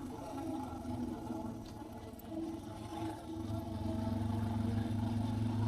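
Suzuki DR650's big-bore single-cylinder engine running under way on the bike, its note growing louder a little past halfway as the throttle opens.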